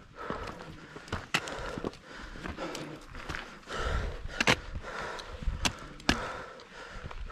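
A hiker's footsteps on a rocky mountain trail: irregular crunching steps with several sharp clicks and knocks, over a low rumble.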